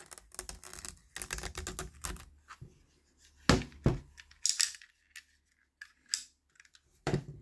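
Plastic shrink wrap on a boxed mediabook being handled and cut open: irregular crinkling and clicking, with a few sharper taps about three and a half to four and a half seconds in and again near the end.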